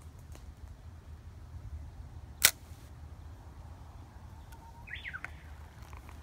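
Rod-and-reel handling during a cast: one sharp click about two and a half seconds in, then a short chirpy swish near five seconds, over a steady low rumble of wind on the microphone.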